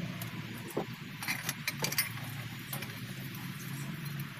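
Metal tools clinking on the exposed rocker arms and valve gear of an 8DC11 diesel engine during valve adjustment. There is a cluster of sharp clicks about a second in, over a steady low hum.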